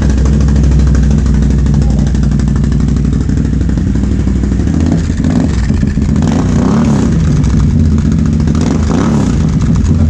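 Can-Am Renegade XMR 1000R's V-twin engine idling steadily just after starting, then given several short throttle blips in the second half.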